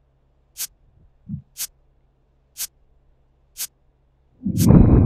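Clock-tick sound effect of a quiz countdown timer, one sharp tick each second. Near the end a louder sound effect lasting under a second comes in, heavy in the low end with a high tone over it, as the countdown runs out.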